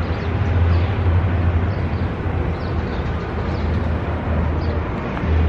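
Steady city street ambience: a continuous low traffic rumble with a hiss over it.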